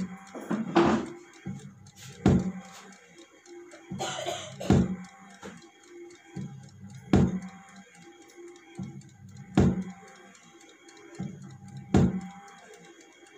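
Bulk density (tapped density) apparatus running. Its motor hums low for about a second, then the cylinder holder drops with a sharp knock, six times at a steady pace of about one every two and a half seconds.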